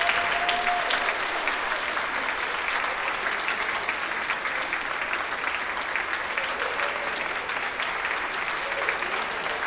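Audience applauding a school concert band at the end of its performance, a dense steady clapping that eases off slightly.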